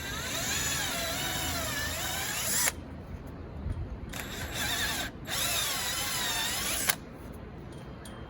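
Power drill enlarging the wing bolt holes in a car's rear deck lid, run in three bursts of a whine that wavers in pitch as the bit loads and unloads.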